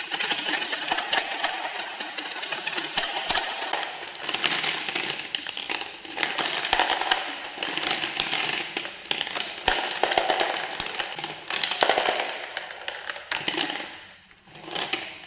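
Glass marbles tumbling out of a toy cement mixer's drum and down its plastic chute into a plastic toy dump truck bed: a dense, rapid clatter of clicks and taps that dies away briefly near the end, then starts again.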